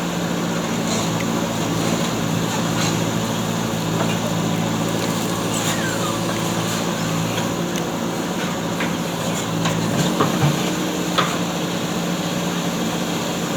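JCB backhoe loader's diesel engine running steadily at an even pitch, with scattered clicks and a few knocks about ten seconds in.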